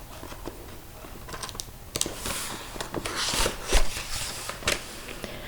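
Light handling sounds while turning to the next page: scattered clicks, then a short run of clicks and rustles from about two seconds in.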